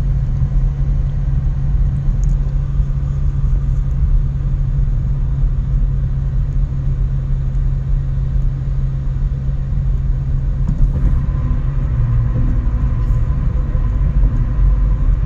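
Steady low rumble of a running vehicle, with no pauses or changes.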